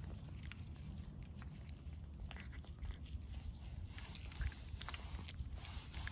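Stray cat eating cat food: irregular, closely spaced chewing clicks.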